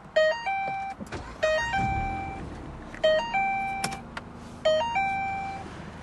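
2012 Ford Fiesta's electronic warning chime, annoying beeping: a quick run of short notes ending on a held tone, repeating about every second and a half. Underneath, the 1.6-litre four-cylinder engine starts up about two seconds in.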